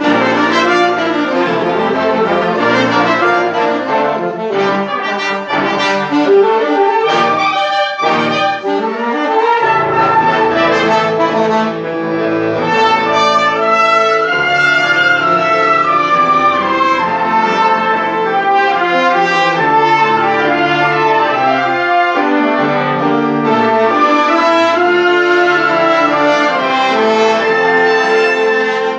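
Live ensemble music with brass instruments prominent, several parts playing together without a break.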